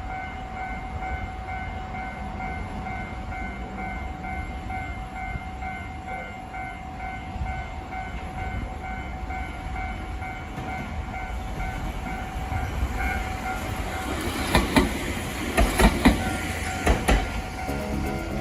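Railway level-crossing warning bell ringing in a steady, rapidly repeating ding. About fourteen seconds in, a train passes over the crossing, its wheels knocking loudly over the rail joints, while the bell keeps ringing.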